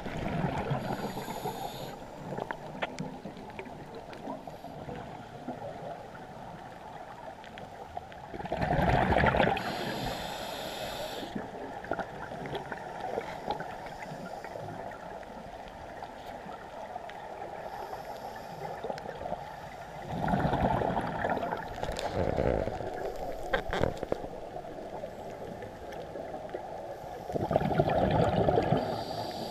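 Scuba divers breathing through their regulators underwater: four loud bursts of exhaled bubbles, the first right at the start and the others several seconds apart, over a steady muffled underwater hiss.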